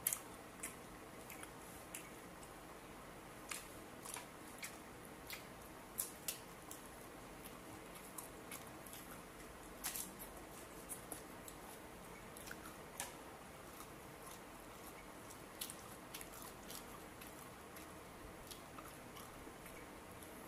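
Close-up chewing and biting of fresh lettuce and grilled pork barbecue: irregular, crisp crunches and mouth clicks, faint over a steady hiss.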